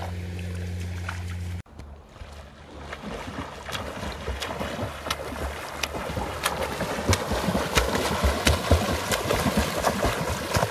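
Splashing of a swimmer doing front crawl in shallow sea water, arm strokes slapping the water, growing louder toward the end. For about the first second and a half there is a steady low hum that cuts off suddenly.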